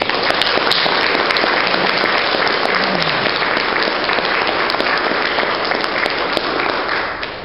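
Audience applauding, starting all at once and easing off near the end.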